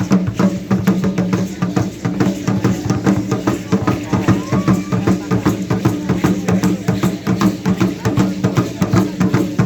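Aztec dance drumming: fast, steady drumbeats over a sustained low tone.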